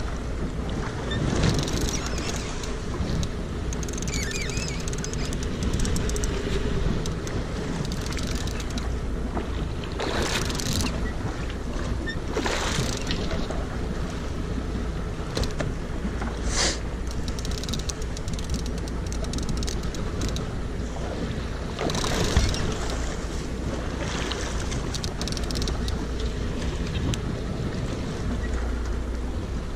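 Wind on the microphone and water washing along the side of a boat, over a steady low rumble, with several brief louder rushes of noise.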